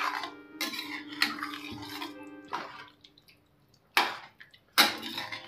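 A cooking spoon stirring potatoes and water in a pan, scraping and knocking against the pan several times, with the two loudest knocks near the end.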